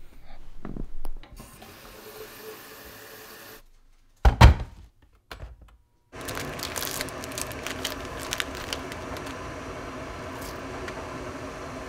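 Hands handling things while making tea: one loud knock about four seconds in, then a steady hum under crinkling plastic packaging and light clicks.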